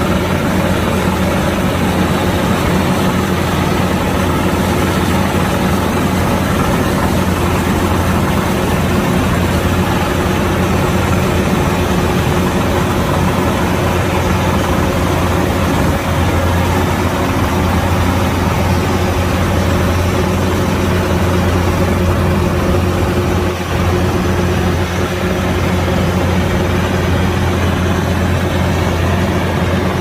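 Kubota DC-108X combine harvester's diesel engine running steadily, a constant low drone that holds level throughout.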